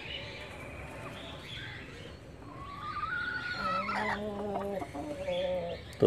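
Desi golden Misri hens calling in the coop: a drawn-out rising call about halfway through, followed by a few seconds of shorter pitched calls.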